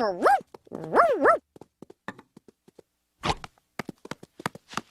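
Cartoon dog giving two short yips that swoop up and down in pitch, followed by a scatter of light taps and clicks.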